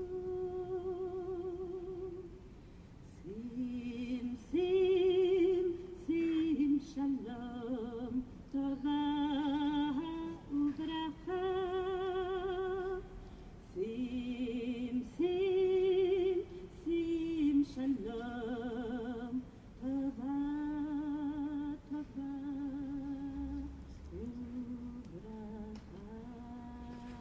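A woman singing solo and unaccompanied, in slow phrases of long held notes with a wide vibrato.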